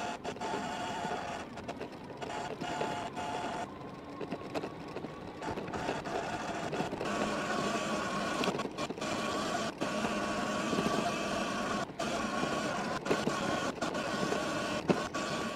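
Sur Ron X electric dirt bike under way, its motor whine shifting in pitch about four seconds in and again around seven seconds as speed changes, over a steady hiss of wind and dirt-track noise.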